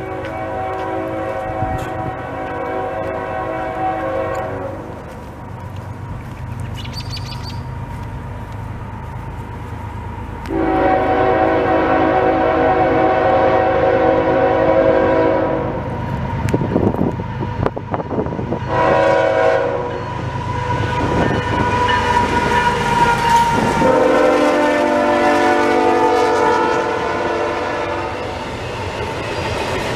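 Multi-note air horn of a CSX freight locomotive sounding the grade-crossing signal (long, long, short, long) over the low rumble of the approaching train. Near the end the double-stacked container cars roll past with wheel clatter.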